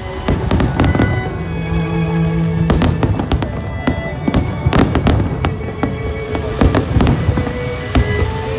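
Fireworks going off, a rapid irregular series of sharp bangs and crackles, several a second.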